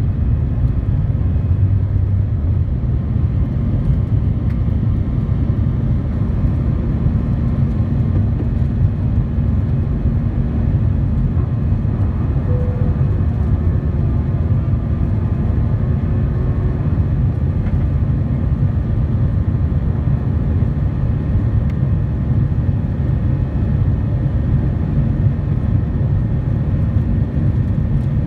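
Airbus A320 cabin noise during the end of the takeoff roll and initial climb: a steady, heavy low rumble of the jet engines at takeoff thrust and rushing air, heard inside the cabin from a seat over the wing.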